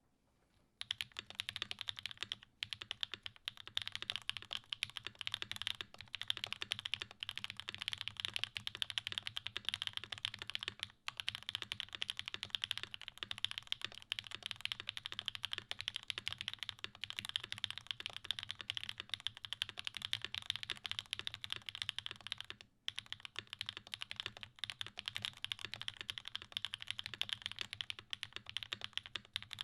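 Continuous fast typing on a custom mechanical keyboard with factory-lubed Gateron Pure Berry long-pole linear switches on a UHMWPE plate, a steady stream of keystroke clacks with a few short pauses. The typing is fairly loud in this build.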